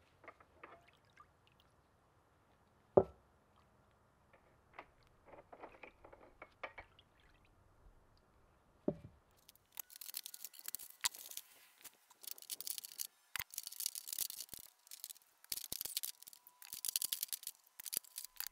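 Rusty hoist parts and chain being lifted out of a bucket of liquid and set down: a sharp knock about 3 s in and another about 9 s in, then from about 10 s on gloved hands splashing and sloshing in the bucket, with liquid dripping.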